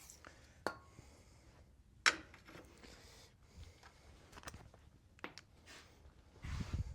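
Scattered sharp clicks and clinks of hand tools and steel parts being handled during assembly, the sharpest about two seconds in, with a brief low thump near the end.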